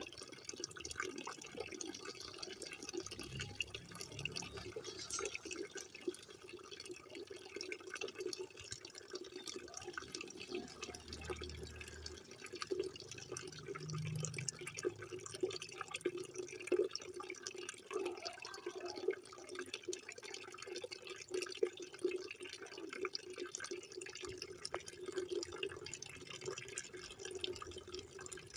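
Water running and splashing steadily, with many small drip-like splashes throughout.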